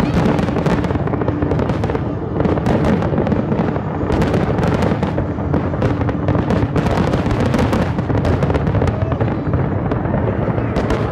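Large aerial fireworks display in a rapid barrage: shell bursts follow so closely that they merge into a continuous booming rumble, with crackling throughout.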